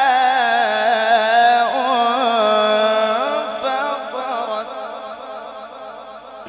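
A man reciting the Quran in melodic tajweed through a microphone, holding one long, ornamented note for about three seconds, then his voice dies away in a long, fading echo.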